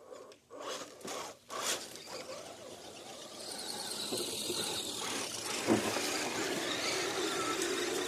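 Electric motor and gears of a radio-controlled crawler whining as it drives, building up about three and a half seconds in, after a few short scuffing noises.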